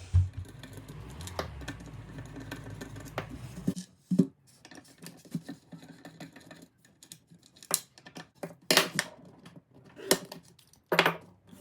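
Scattered light clicks, taps and knocks of objects being handled, with a low thump at the very start and a low hum that stops about four seconds in.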